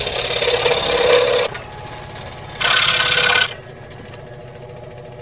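A 16-inch variable-speed scroll saw running and cutting a wooden board, its blade chattering rapidly up and down. The cutting is loudest for the first second and a half and again briefly about three seconds in.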